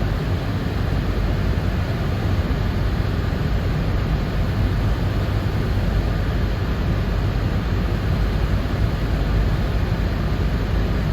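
Steady low rumble of a car on the move: road, tyre and engine noise, unbroken throughout.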